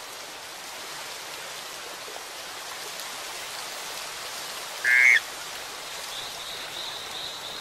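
Panamanian golden frog giving one short, quiet pulsed call about five seconds in, over the steady rush of stream water. A thin, steady high tone comes in about a second later.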